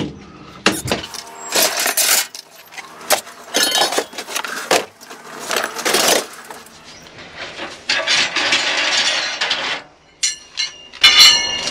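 Hand tools and metal gear clattering and clinking as they are moved about in the back of a work van, with cloth rustling close to the microphone. Near the end a metal piece clinks and rings briefly.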